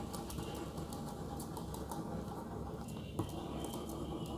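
Pen scratching on paper in quick, short strokes, scribbling small curved leaves, with one slightly louder tick about three seconds in.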